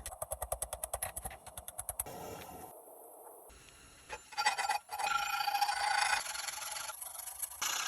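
Metalworking on a forged steel axe head, edited together: about two seconds of fast, even strikes, a short lull, then from about four seconds in the scraping rasp of a file working the steel, with a faint ring from the metal.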